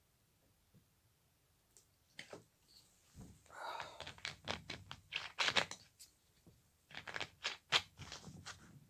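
Crinkling, rustling and sharp clicks of something handled close to the microphone. They start about three seconds in, in irregular clusters, loudest in the middle and near the end.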